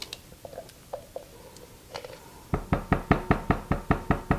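A silicone spatula scraping and clicking faintly against a peanut butter jar. About halfway through comes a quick, even run of sharp knocks, about seven a second, as the jar and spatula are rapped to shake the last peanut butter into the bowl.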